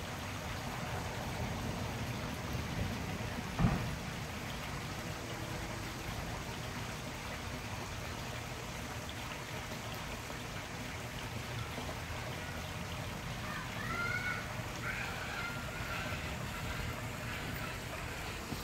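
Steady outdoor background noise, with a single knock about three and a half seconds in and a few short bird chirps near the end.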